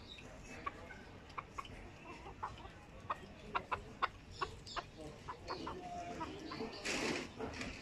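Barbu d'Anvers bantam chickens pecking grain off a hard board, a string of sharp taps, with soft clucking. A brief louder rustle comes near the end.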